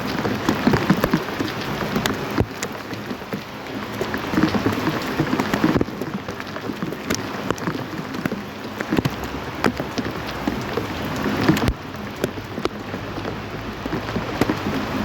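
Rain falling on a hard surface, a steady hiss packed with close individual drops striking as sharp taps. The sound shifts abruptly a few times, about two, six and twelve seconds in.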